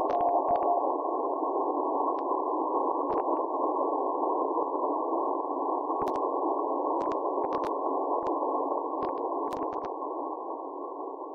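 Shortwave receiver hiss in CW mode, heard through a narrow audio filter, with scattered static clicks. A faint 700 Hz Morse tone from the weak beacon keys once or twice in the first second, then only noise is left, fading down near the end.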